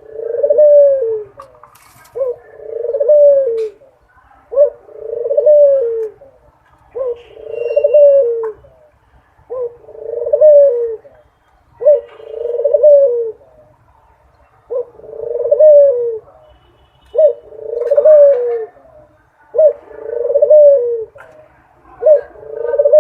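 A dove cooing over and over, about ten low calls, each a short note followed by a longer coo, repeating every two seconds or so.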